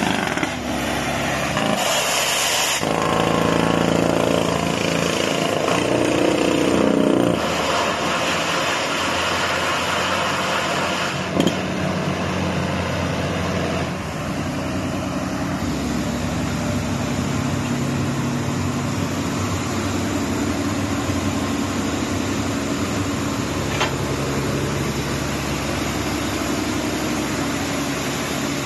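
A truck-mounted water well drilling rig's diesel engine running steadily. A louder rushing noise runs from about two to seven seconds in, and there is one sharp knock about halfway through.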